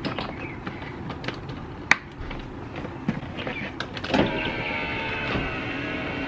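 Scattered clicks and knocks, then about four seconds in a Toyota Tacoma's door power-window motor starts and runs steadily with an even whine, raising the glass with the door panel off.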